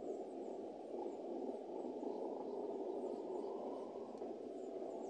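Freight train wagons rolling along the rails in a steady, even rumble, with no horn or engine note standing out.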